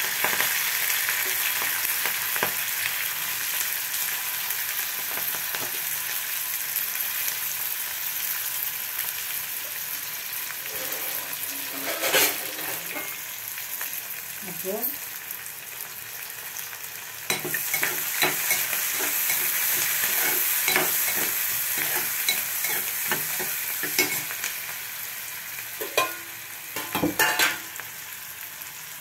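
Chopped onions and green chillies sizzling in hot oil in an aluminium pot, a steady frying hiss. A steel spoon clicks and scrapes against the pot several times as they are stirred, most clearly near the end.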